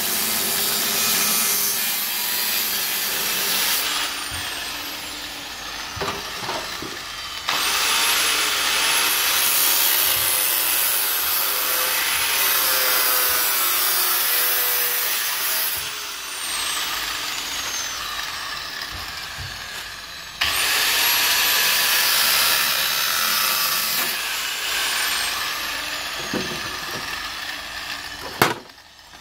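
Electric angle grinder with a cutting disc slicing through a steel sheet-metal panel: a loud, harsh grinding hiss in three long stretches, each ending with the motor's whine falling away as the disc eases off the cut. The panel is cut through near the end, followed by a sharp knock.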